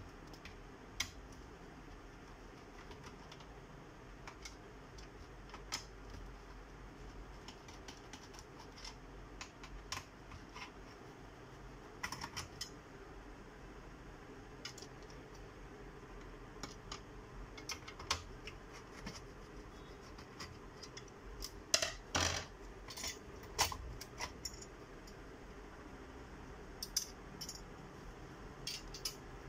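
Scattered small clicks and metallic clinks of a screwdriver, screws and the sheet-metal rear shield of an HP 400 G2 all-in-one PC being handled during disassembly, with a burst of sharper clatters a little past the middle.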